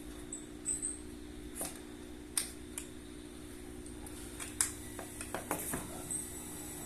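A dozen or so light clicks and taps at irregular intervals, the sound of small hard objects being handled, over a steady low electrical hum.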